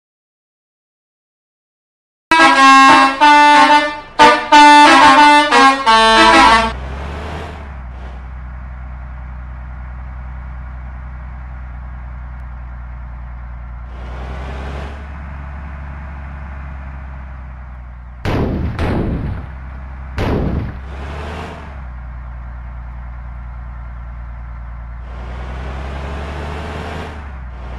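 Indonesian bus telolet horn playing a quick multi-note tune for about four seconds after a couple of seconds of silence. Then the bus engine runs steadily, with two short loud bursts a little past halfway.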